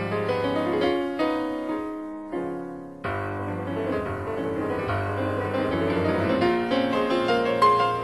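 Background piano music with sustained chords; it fades down and then starts again abruptly about three seconds in.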